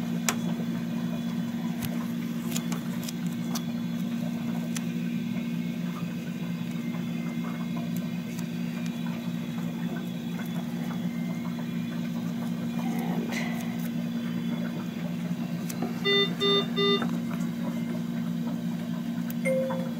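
Steady low hum of bedside hospital equipment, with faint clicks and rustles from hands working tape. About sixteen seconds in, three short electronic beeps sound in quick succession, with a single short beep near the end.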